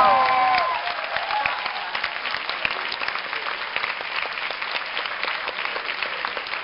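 Audience applauding steadily, the clapping slowly fading, with a few shouted cheers dying out within the first second.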